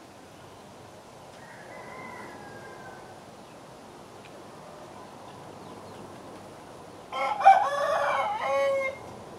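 Black-breasted red Phoenix rooster crowing once, a loud crow of about two seconds near the end. A much fainter, distant crow is heard about two seconds in.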